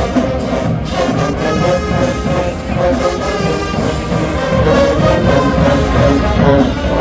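Marching band playing: a loud brass section of trumpets and trombones holding sustained chords over drums.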